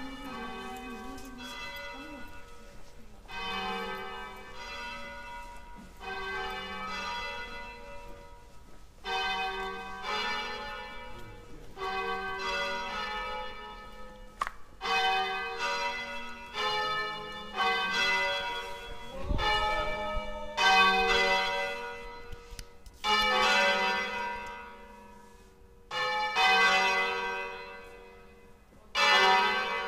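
Church bells ringing from a bell tower: a run of separate strikes on bells of different pitch, each ringing on and dying away, coming every second or so and growing louder in the second half.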